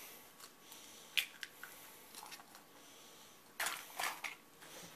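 An egg being opened over a bowl of torn bread stuffing: small clicks of eggshell being pulled apart, then a few louder knocks about three and a half to four seconds in as the shells are handled and set down.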